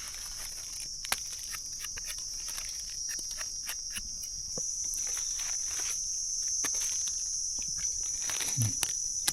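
Steady high-pitched drone of insects, with scattered short crackles and rustles of footsteps and handling in dry leaf litter.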